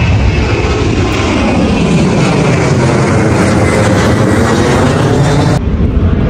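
Twin-engine jet airliner flying low overhead: a loud, steady jet roar with tones sweeping up and down as it passes, cut off abruptly near the end.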